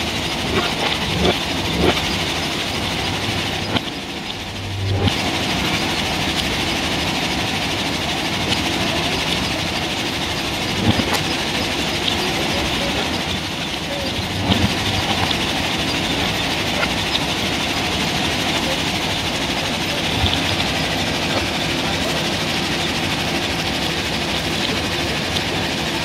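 JCB 3DX backhoe loader's diesel engine working as it digs sand, over the steady rattle of a belt conveyor running alongside. A few knocks early on and dull thuds now and then.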